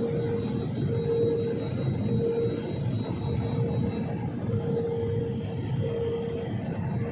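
Airliner cabin noise at a window seat over the wing engine during the landing: a steady rumble of jet engine and airflow, with a steady hum that wavers slightly.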